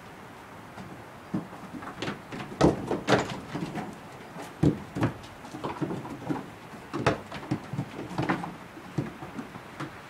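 Goat kids' hooves knocking and clattering on wooden boards as they jump between a ledge, a bench and a box: irregular thuds, with the loudest about two and a half seconds in.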